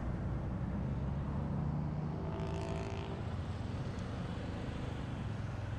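Yamaha XT250 Serow's air-cooled single-cylinder engine running as the bike pulls out onto the road, a little louder about a second and a half in. A brief higher-pitched sound about two and a half seconds in.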